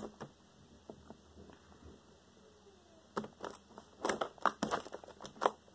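Sticky fluffy slime being pressed, pinched and pulled by hand: scattered wet pops and crackles, few at first, then a quick run of them from about three seconds in.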